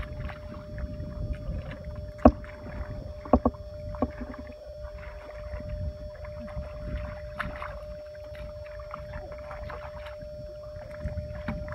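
Hands splashing and sloshing through shallow muddy water while groping for fish, with a few sharper slaps about two to four seconds in. A faint steady hum runs underneath.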